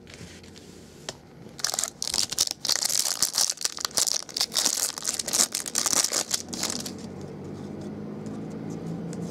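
Trading-card pack's plastic wrapper being torn open and crinkled by hand, a dense run of crinkling and tearing that dies away about seven seconds in.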